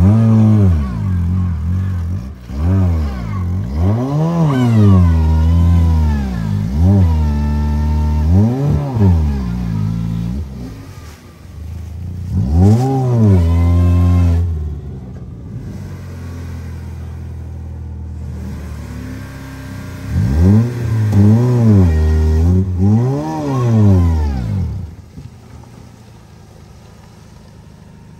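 Peugeot 106 hatchback's petrol engine revved hard again and again, each rev rising and falling back, as the car tries to climb out of a muddy ditch. It settles to a steadier run in the middle, revs again several times, and drops away near the end.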